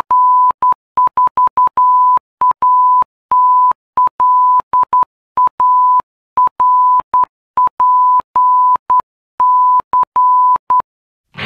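Morse code: a single steady beep, about 1 kHz, keyed on and off in short dots and longer dashes at a brisk pace. It stops shortly before the end.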